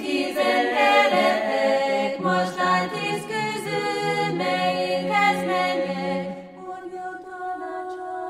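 Vocal music: several voices singing together in harmony, a chant-like choral piece. It turns quieter about six seconds in and thins to a few held notes.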